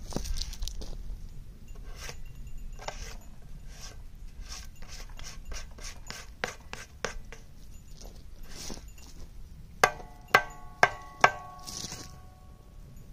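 Wet, sticky clay being scraped and pushed around on a metal tray, with scattered scrapes and knocks. Near the end come four sharp, ringing metallic taps in quick succession, the loudest sounds here, like a tool being knocked against the tray.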